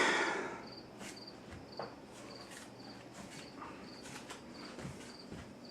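A cricket chirping: short high-pitched chirps repeating at an even pace, over the faint background of a ceiling fan running on low.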